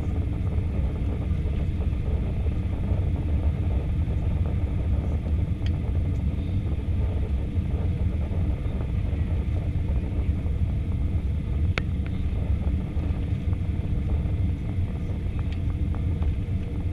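Steady low rumble inside an Airbus A320's cabin during descent: engine and airflow noise heard beside the wing, with a faint click or two.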